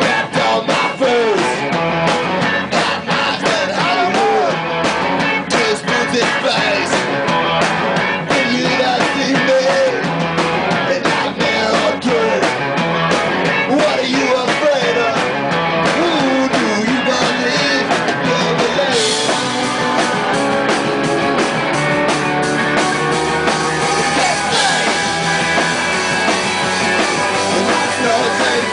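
A punk rock band playing loud and live: distorted electric guitars, bass and drums, with a voice singing through the first two-thirds. About two-thirds of the way in the cymbals come up brighter and the playing turns to more held chords.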